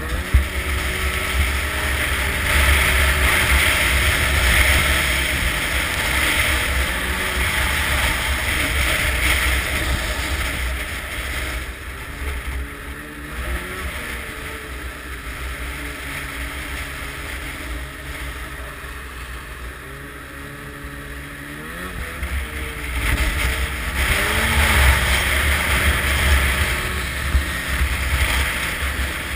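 Snowmobile engine running while under way, its pitch rising and falling as the throttle is opened and eased. There is heavy wind noise on the microphone. It is louder for the first several seconds and again toward the end, with a quieter, slower stretch in the middle.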